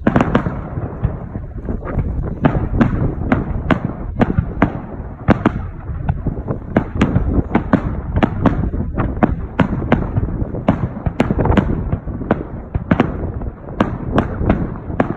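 Fireworks display in a fast barrage: sharp bangs a few times a second over a continuous low rumble of bursts and echoes.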